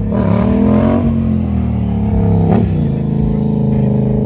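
Stunt motorcycle engine revving up and down under the rider's throttle, its pitch swelling and dropping, with a quick dip and pick-up about two and a half seconds in.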